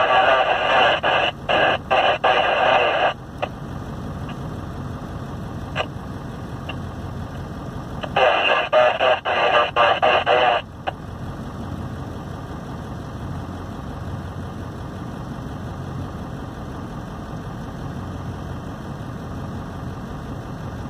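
Two bursts of two-way radio chatter, narrow and tinny, cutting in and out: one at the start lasting about three seconds, the other about eight seconds in. Under them runs the steady low rumble of an idling truck, heard from inside its cab.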